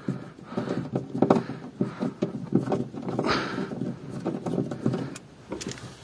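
Irregular light knocks and clacks as a cabinet and its parts are handled and shifted about, with a brief scrape about three seconds in.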